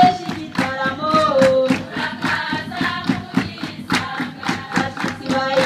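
A group of women singing together in chorus over a steady beat of hand-clapping.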